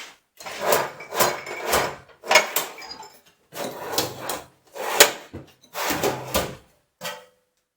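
Handling noise from a steel tool box drawer being emptied: loose metal parts clattering and clinking, items knocking against the drawer, and the drawer sliding. It comes in irregular clusters of knocks and stops abruptly near the end.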